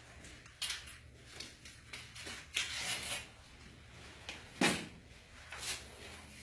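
Scattered rustling, scraping and clicking of objects being handled, in a series of short, irregular noises; the loudest is a brief rustle about three quarters of the way through.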